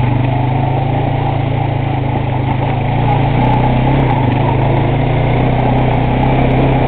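Honda Rancher 420 ATV's single-cylinder four-stroke engine running steadily at an even pitch as the ATV creeps along the trail.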